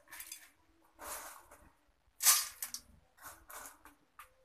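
Handfuls of crispy fried besan sev rustling as they are scooped by hand from a steel platter and dropped onto small steel plates, in short bursts about once a second, the loudest a little past two seconds in.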